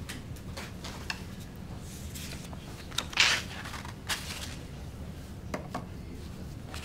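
Quiet room with a low steady hum, broken by a few small clicks and a brief rustle about three seconds in.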